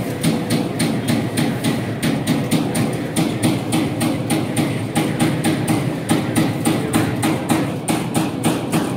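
Servo-driven 30-ton CNC turret punch press punching sheet metal in a fast, even run of hits, about four a second, over a steady background din.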